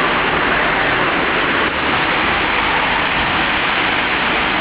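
Heavy rain pouring down on the street, a loud, steady hiss.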